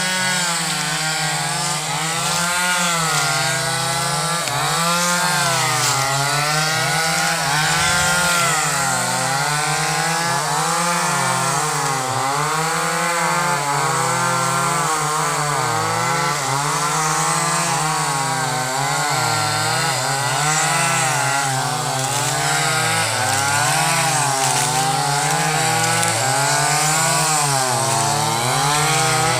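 Chainsaw running at high revs while cutting through a wooden beam, its engine pitch rising and dipping as it works under load.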